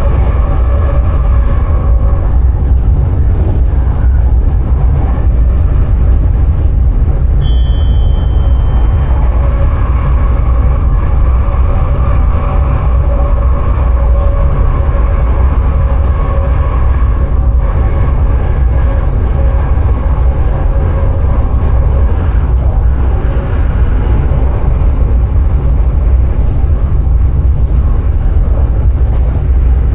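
Electric sprinter train running at speed, heard from inside the driver's cab: a heavy, steady low rumble with a few steady humming tones above it. A short high tone sounds about seven seconds in.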